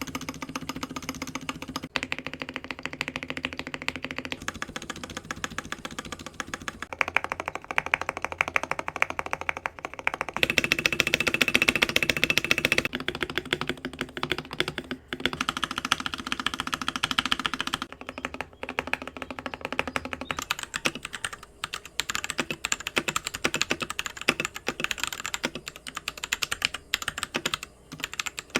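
Typing on a Royal Kludge RK84 mechanical keyboard with linear Gateron Yellow switches: a rapid, continuous run of key clacks and bottoming-out taps. The tone changes several times, loudest from about 10 to 13 seconds in.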